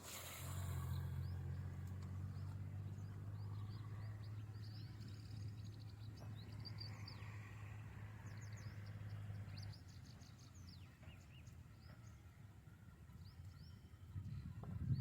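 Small birds chirping repeatedly in short high calls. Under them a steady low hum runs and cuts off suddenly about ten seconds in.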